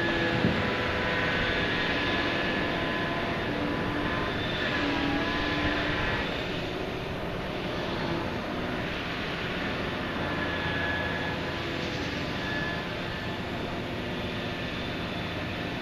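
Heavy dredging machinery, the Liebherr P995 backhoe's engine and hydraulics, running steadily, with faint whines that come and go and shift in pitch.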